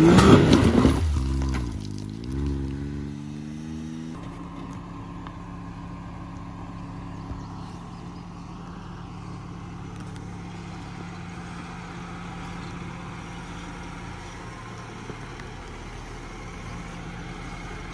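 Off-road vehicle engine revving, its pitch rising and falling, loudest in the first second. About four seconds in the sound changes abruptly to a steady low engine hum at low revs.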